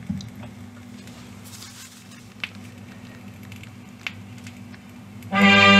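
Vinyl LP on the Grundig Trento radiogram's record player, heard through its valve amplifier and speakers: the stylus runs in the lead-in groove with light crackle and a few faint clicks over a steady low hum. About five seconds in, brass-led music starts abruptly and loud.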